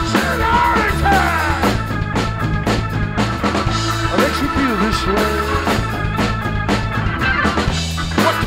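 Live rock trio playing: electric bass holding low notes, drum kit with cymbals and steady drum hits, and an electronic keyboard with notes that bend in pitch.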